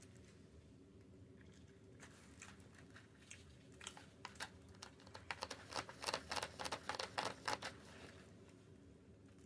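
A run of sharp, crisp crackles and clicks from about four to eight seconds in, in quick succession and loudest near the end of the run, with quiet room tone around it.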